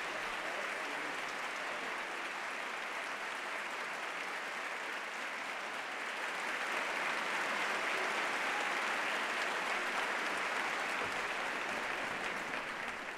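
Audience applauding, a steady patter of many hands clapping that grows a little louder about halfway through and starts to die away at the end.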